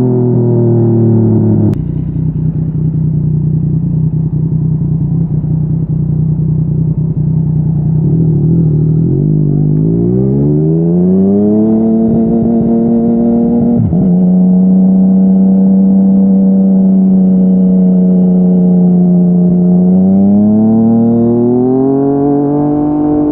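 Yamaha MT-09's inline three-cylinder engine through a Yoshimura R55 slip-on exhaust, under way. The engine note drops suddenly at a gear change about two seconds in and holds steady. It then climbs under acceleration and drops again at a second quick upshift about halfway through. Near the end it rises once more and settles at a higher steady pitch.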